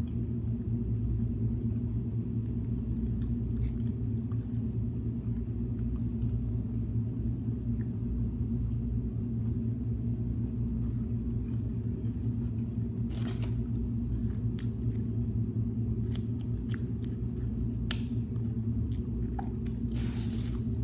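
Steady low rumble throughout, with scattered soft clicks and crunches of someone chewing barbecued ribs, more of them in the second half.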